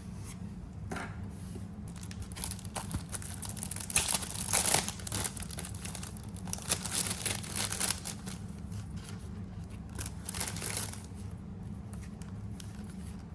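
Paper being handled: irregular crinkling and rustling with tearing sounds, loudest about four to five seconds in, over a steady low hum.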